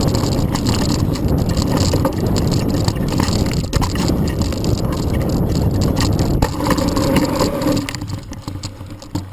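Specialized Rockhopper Pro mountain bike riding fast down a dirt trail, heard from a handlebar-mounted camera: a steady rumble of tyres over rough ground with frequent rattling knocks from the bike. It dies down near the end.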